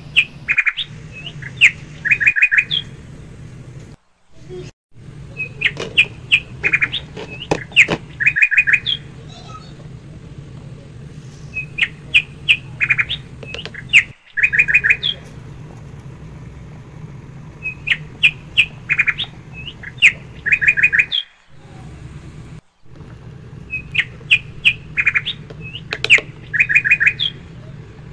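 Bird chirps in quick clusters, repeating in the same pattern about every six seconds over a low steady hum, as from a looped birdsong recording.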